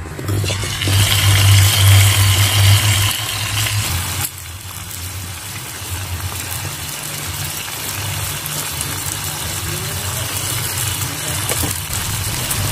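Water running and splashing as aloe vera leaves are washed by hand, over a steady low machine hum. The water is louder for the first four seconds or so.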